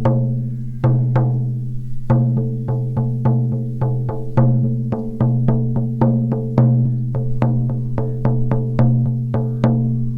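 14-inch deerskin shamanic frame drum on a beechwood frame, struck with a firm beater in a steady beat of about three strikes a second. Each strike leaves a low ringing tone with overtones. There is a brief pause about a second in.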